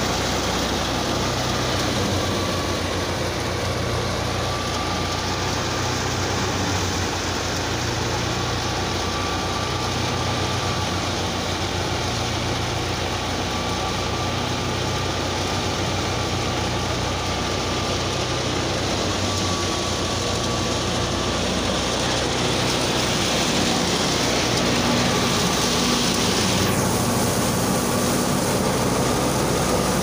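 Tractor-powered wheat thresher running steadily, its threshing drum and fan rushing over the tractor engine's steady running, as wheat sheaves are fed in. The rushing grows slightly louder near the end.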